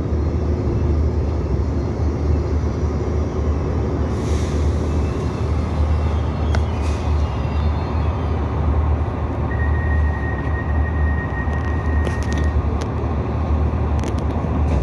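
Interior of an Irish Rail 2800 class diesel railcar: the underfloor diesel engine and running gear give a steady low drone as the train rolls slowly to a stop. There is a brief hiss about four seconds in, a thin steady high tone lasting about three seconds around ten seconds in, and a few light clicks near the end.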